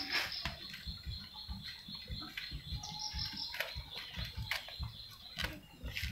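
Outdoor background of high chirping, with a steady high-pitched trill that stops about five seconds in, over scattered light clicks and low thumps.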